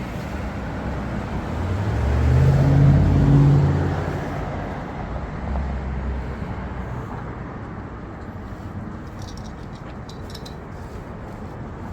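A motor vehicle driving past, its engine hum swelling to a peak about three seconds in and then fading, over a steady outdoor hiss.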